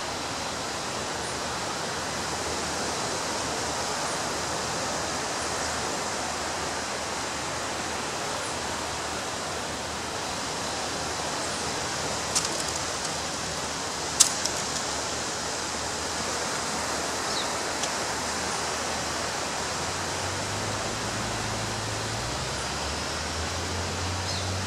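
Ocean surf breaking on a beach as a steady, even hiss of water noise, with two sharp clicks about twelve and fourteen seconds in and a low hum coming in near the end.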